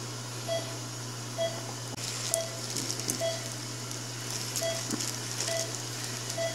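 Operating-room patient monitor beeping in time with the pulse, a short mid-pitched beep about once a second, over a steady equipment hum. Faint clicks of surgical instruments handling the suture in between.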